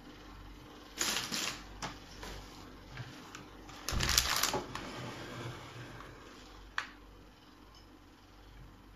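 Kitchenware handled on a tabletop: short clatters and knocks of a plastic container and a plate, loudest in a cluster about four seconds in, with one sharp click near the seven-second mark.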